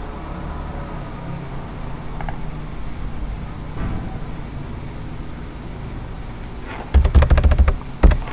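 Computer keyboard keys tapped in a fast run near the end, with one more keystroke just after, over a steady low hum. The run is the backspace key deleting misrecognised voice-typed text.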